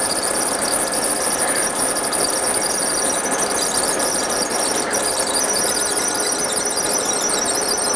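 20W fiber laser machine running, giving a steady, high-pitched squeal with a dense rapid flutter above it.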